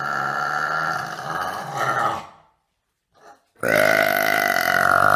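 A woman burping: one long, drawn-out burp trails off about two seconds in, and after a short pause a second long burp begins at about three and a half seconds.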